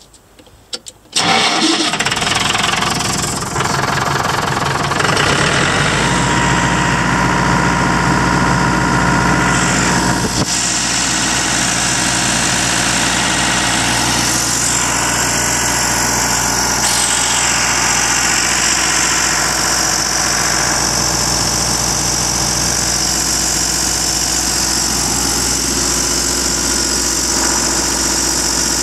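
Perkins 1004-42 four-cylinder diesel engine starting about a second in and then running steadily. Its note shifts once, about ten seconds in.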